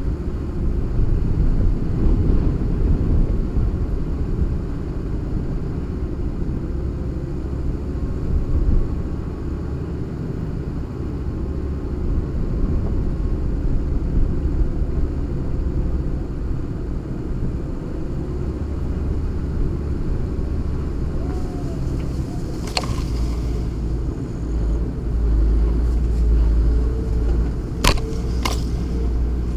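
SsangYong Korando 2.9 TD's five-cylinder turbodiesel and drivetrain rumbling low as the vehicle drives slowly over an overgrown dirt track. A few sharp knocks come near the end.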